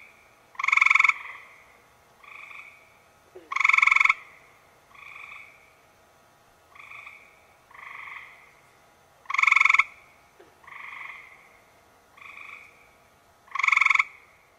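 Frogs croaking: four loud croaks a few seconds apart, with quieter croaks in between.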